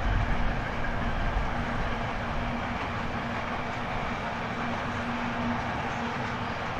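A train rolling past on the line, a steady rumble of wheels on track with a faint hum that comes and goes.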